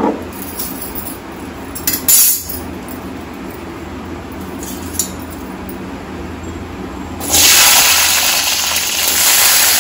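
Sliced shallots tipped into hot sesame oil in a steel kadai, breaking into a loud, steady sizzle about seven seconds in. Before that there is a quiet hiss with a couple of short clinks.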